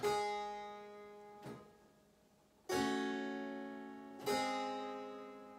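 Chords played on a harpsichord-type keyboard instrument, each starting with a sharp pluck and ringing on as it fades: one at the start, a faint one about a second and a half in, then two stronger chords near the middle and near the end. The chords form a cadence.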